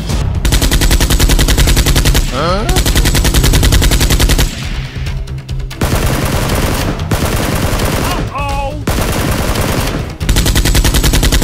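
Rapid automatic machine-gun fire sound effects in long sustained bursts, with brief breaks between bursts.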